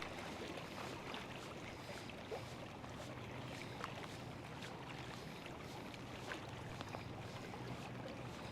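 Steady outdoor wash of river water and rain, with many small irregular ticks like raindrops striking nearby surfaces. A faint steady low hum joins in about two seconds in.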